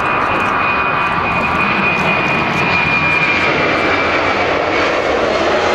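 Jet cargo aircraft engines running loud and steady, a dense rush with a thin high whine above it.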